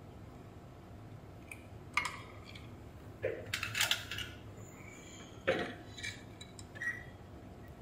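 Several small clicks and clinks of metal tools (soldering iron tip, tweezers) against the circuit board and bench, starting about two seconds in with a denser cluster near the middle, over a faint steady hum, as the damaged bridge rectifier is being desoldered.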